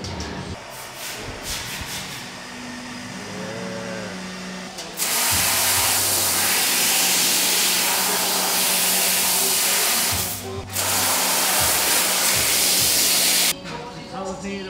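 Laser cutting machine cutting sheet steel: a loud, steady hiss from the cutting head starts about five seconds in, breaks off briefly about two-thirds of the way through, and stops suddenly near the end.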